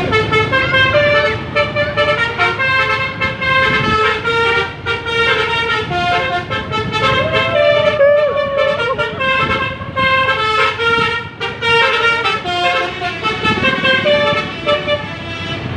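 Indonesian bus telolet horns, multi-note air horns playing quick tunes. Each note is a steady chord that jumps to the next in rapid steps, and the tunes run on with only brief gaps.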